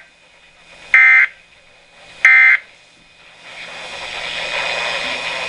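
Two short, raspy bursts of SAME digital data tones from a weather radio, about a second and a half apart, each about a third of a second long. The shortness of the bursts fits the end-of-message code that closes an alert. Then a radio hiss builds up over the last couple of seconds.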